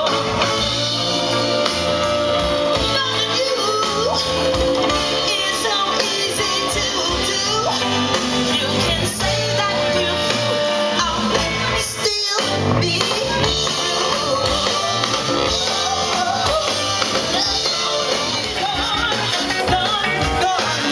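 Soul band with a horn section, drum kit and electric guitars playing live, with vocals, heard from within the crowd at a club concert. There is a brief dropout near the middle.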